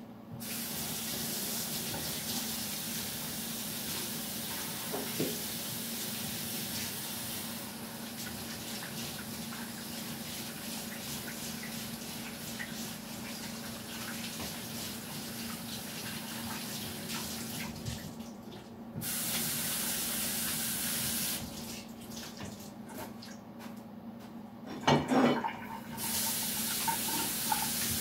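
Kitchen tap running into a sink, shut off twice briefly and turned back on, with a short clatter of dishes around the second pause.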